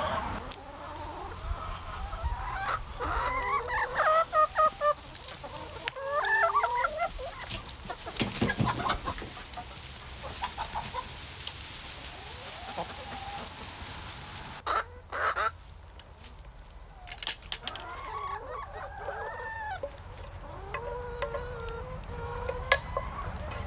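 A flock of chickens clucking and calling, with loud drawn-out squawks in the first few seconds and again near the end. A short run of sharp crackles comes a little past halfway.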